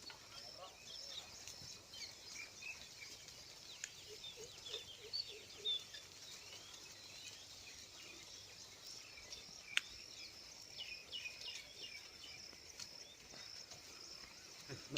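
Faint field ambience of small birds chirping over a steady high hiss, with a single sharp click about ten seconds in.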